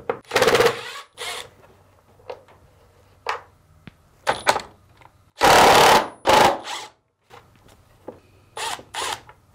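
Cordless power driver backing out the screws of a dryer's motor mounting clamps in short runs. The longest and loudest run comes about halfway through, with a shorter one just after the start and small knocks between.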